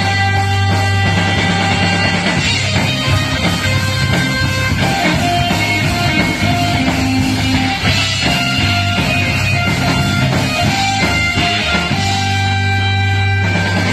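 Women's marching band music, loud and continuous: drums under a melody of held notes over a steady bass.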